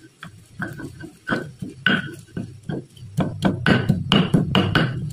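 Stone pestle pounding green chillies and shallots for sambal in a stone cobek mortar: a run of hard knocks, about three a second, coming faster and louder about three seconds in over a low grinding rumble.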